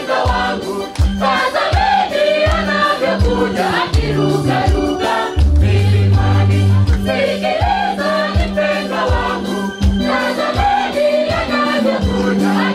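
A choir singing a gospel-style hymn over a steady drum beat and a bass line.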